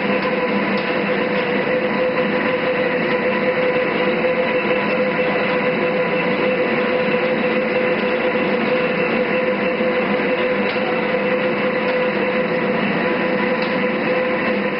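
All-geared lathe running steadily, a constant mechanical noise with a steady whine from the geared headstock.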